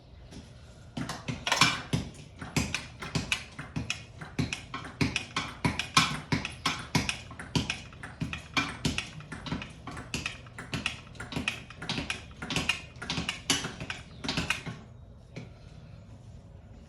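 A long run of sharp metallic clicks and taps, about three a second, from hand tools and metal parts being handled during a dirt-bike teardown; it stops a couple of seconds before the end.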